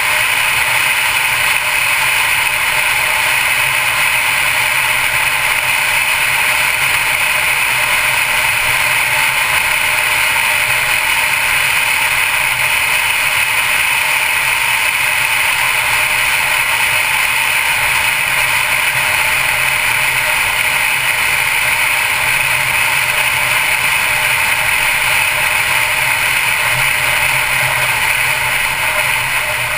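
Mercedes-Benz C250 Coupe cruising at a steady speed: a loud, even rush of wind and tyre noise with a low hum underneath that never changes.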